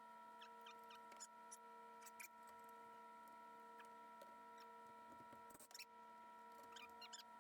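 Near silence: a faint steady electrical hum of several fixed tones, with a few faint small clicks and ticks.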